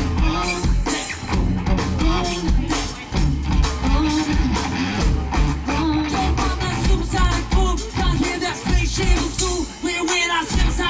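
Live band playing an upbeat dance number with drum kit, bass and electric guitar, a singer's voice over the top.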